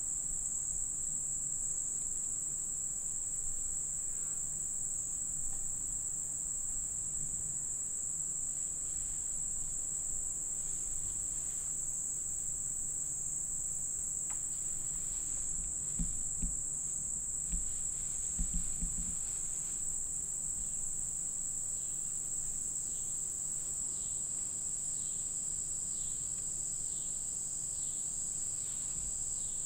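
Steady high-pitched chorus of insects chirping without a break. A few soft low knocks come a little past the middle.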